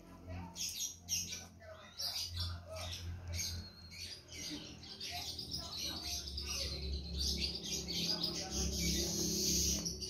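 Young spotted doves begging at a feeding hand, giving many quick high-pitched squeaky calls that crowd into a near-continuous squeaking in the second half, with wing flapping. A steady low hum lies underneath.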